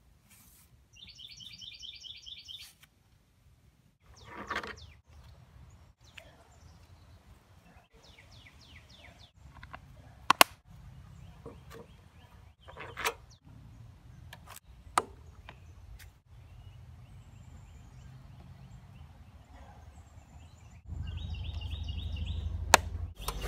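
Sharp plastic clicks and knocks as the air-filter covers on Briggs & Stratton mower engines are handled and snapped into place, with short chirping bird trills near the start and near the end. A low hum comes in near the end.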